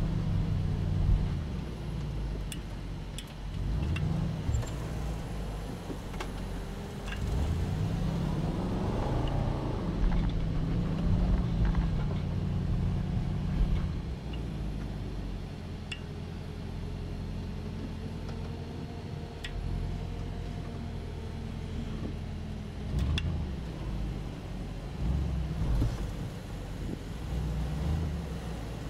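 Range Rover Sport engine working up a sandy hill, heard from inside the cabin. The revs rise and fall about a third of the way through, then hold and creep upward, with scattered small ticks over the engine.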